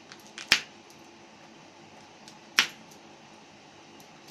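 Two sharp knocks of a knife coming down onto the cutting surface, about two seconds apart, as an aloe vera leaf is chopped into small pieces.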